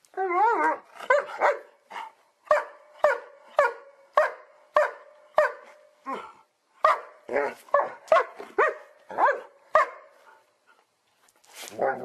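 German Shepherd barking in a rapid series, about two short barks a second. The barks stop about ten seconds in and start again near the end.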